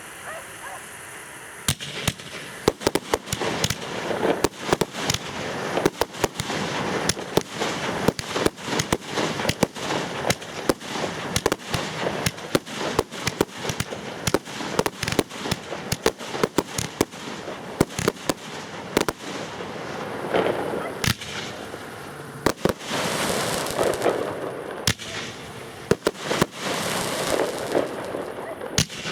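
Fireworks going off: a rapid, irregular string of sharp bangs and cracks starting about two seconds in, with stretches of hissing crackle mixed in.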